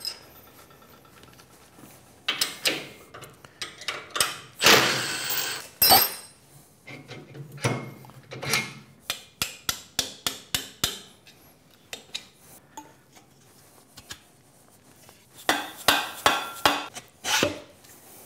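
Metal hand-tool work on a steel post: scattered clanks and clinks, a scrape lasting about a second around five seconds in, and a quick run of mallet taps about ten seconds in as the post is knocked loose from its socket.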